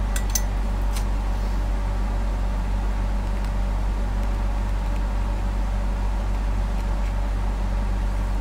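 Steady low electrical hum, with a few faint light clicks in the first second as the lead and tweezers are handled during soldering.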